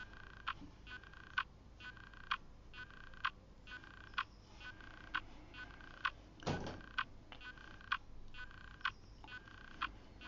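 Faint regular ticking, a sharp click roughly once a second with a weaker one between some of them, each click ringing briefly. A short soft rustle comes about six and a half seconds in.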